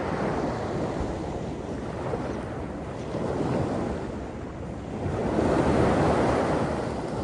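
Small waves breaking and washing up on a sandy beach, the surf rising and falling and at its loudest about five to six seconds in.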